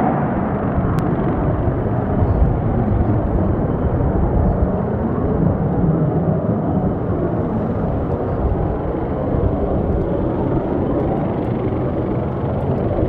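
Twin J79 turbojets of an F-4EJ Kai Phantom climbing away after takeoff: a steady, loud jet rumble.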